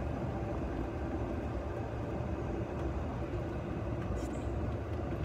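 Electric golf cart driving along, a steady rumbling noise with a faint steady tone under it. A short high chirp about four seconds in.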